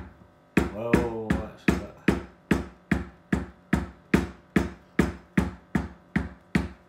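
Poly maul striking the top of a metal leather-stamping tool, stamping a pattern into a leather sheath: steady, even blows about two and a half a second.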